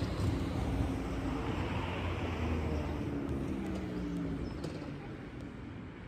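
Road traffic: steady tyre and engine noise of cars on a road, with one vehicle passing about two seconds in and the noise easing off toward the end.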